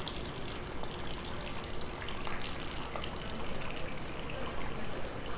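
Water running steadily from a spout into a stone hand-washing basin.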